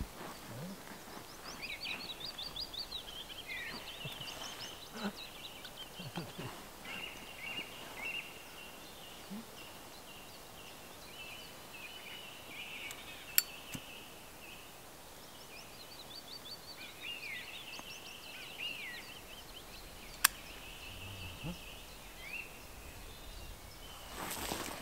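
Songbirds singing: a steady chorus of chirps, quick trills and sweeping calls. Two sharp clicks stand out as the loudest sounds, about halfway through and again about seven seconds later.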